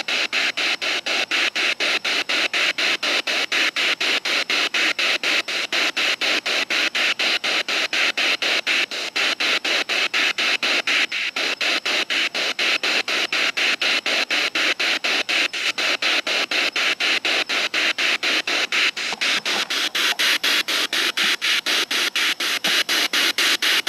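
Spirit box radio scanner sweeping through frequencies with its antenna down, so it picks up almost no stations: steady hissing static chopped about four times a second by its 250-millisecond sweep.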